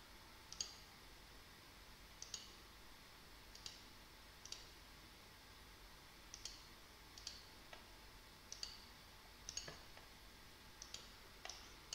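Computer mouse button clicking faintly: about a dozen short, sharp clicks at irregular spacing, some in quick pairs.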